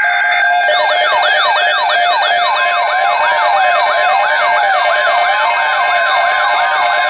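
Electronic siren alarm from weather alert radios: several tones sweep up and down about twice a second, overlapping, starting under a second in over a steady tone. It is the alert for a received test tornado watch.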